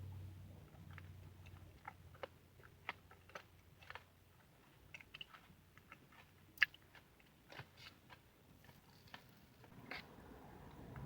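A person chewing and biting pie, heard as scattered small wet mouth clicks and smacks, with one sharper click a little past the middle.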